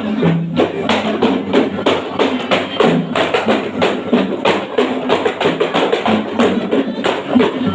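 Kei-style gambus music for the Samra dance: a steady, quick beat of hand percussion under a plucked low melody that steps from note to note.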